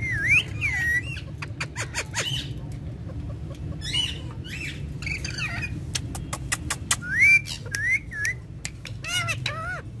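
Rose-ringed parakeets (Indian ringneck parrots) calling while beak to beak in courtship feeding: a run of short chirps and squawks with quick up-and-down pitch, mixed with beak clicks, over a steady low rumble. The loudest calls come just after the start and about two thirds of the way in.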